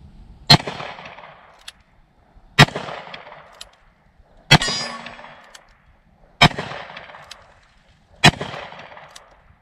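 Ruger Blackhawk Bisley single-action revolver firing .45 Colt, five shots about two seconds apart, each echoing away over about a second. A faint click falls between the shots.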